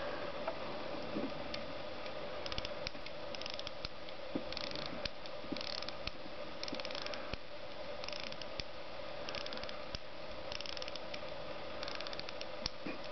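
Illinois Autocrat pocket watch being wound at the crown: the winding click ratchets in short bursts of clicks, about one burst a second, one for each twist of the crown. A steady low hum runs underneath.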